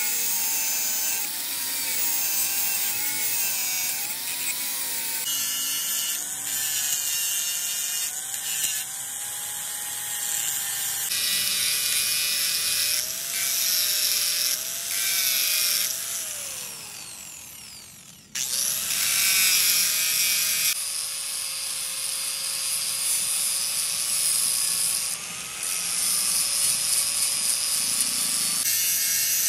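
Angle grinder grinding the teeth of a steel gear held in a vise: the motor whine dips and recovers as the disc is pressed onto the metal, over a harsh grinding hiss. About two-thirds of the way through, the grinder winds down with a falling whine, then grinding starts again abruptly.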